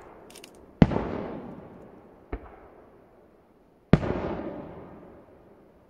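Aerial firework shells bursting: two loud booms about three seconds apart with a fainter bang between them, each trailing off in a long echo.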